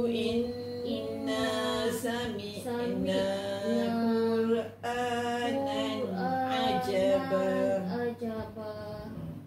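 Quran recitation chanted by a female voice in a slow melodic style, with long held notes that glide between pitches and a short break for breath about halfway through.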